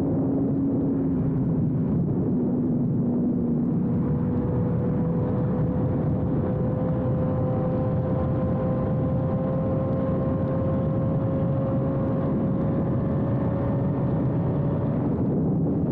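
Suzuki GSX-R1000R inline-four sportbike running through a Yoshimura exhaust while riding at speed, its note climbing slowly in pitch as it pulls steadily through the gear. Over a constant rush of wind and road noise.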